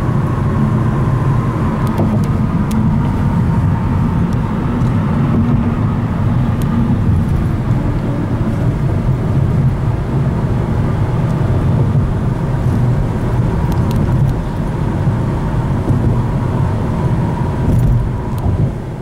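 Steady road and engine noise inside a car's cabin while driving on a freeway, mostly a low rumble, fading out near the end.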